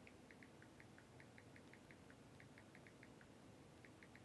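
Near silence: room tone with faint, quick, irregular ticks, several a second.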